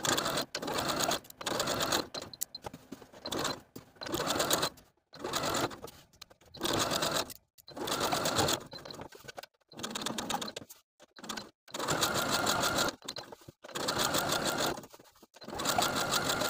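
Electric domestic sewing machine stitching through heavyweight linen-blend fabric, edge-stitching a pocket onto a pant piece. It runs in short bursts of about a second, stopping and starting again many times.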